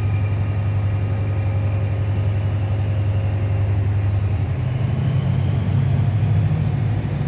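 Class 68 diesel locomotive's Caterpillar V16 engine under power as the train pulls away, a steady low drone that steps up in pitch about four and a half seconds in as the engine works harder.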